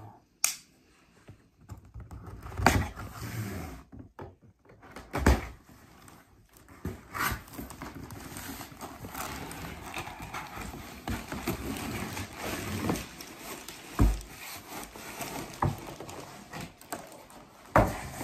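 Cardboard shipping box being cut open with a small blade and handled: scraping and rustling, with scattered knocks and thumps, the loudest about 14 seconds in.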